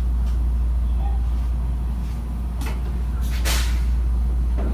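Steady low hum of a 223-series electric train standing at the platform. About three and a half seconds in comes a short hiss of air, with a couple of faint knocks around it.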